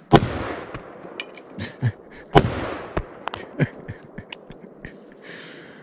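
Two shots from a Sig Sauer M400 semi-automatic AR-15 rifle, about two seconds apart, each trailing off in echo. Several smaller sharp clicks and cracks fall between and after them.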